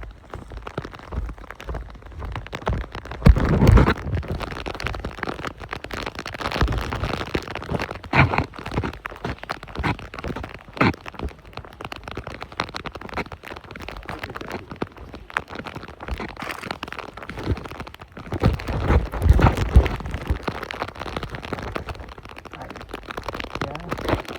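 Wind buffeting the phone's microphone: a rough, steady rush with loud low rumbling gusts, the strongest about three seconds in and again near the end.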